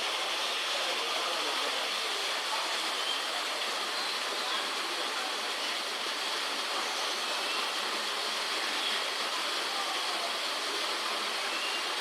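Steady rush of falling water in a zoo exhibit, with faint visitor voices and a few faint high calls over it.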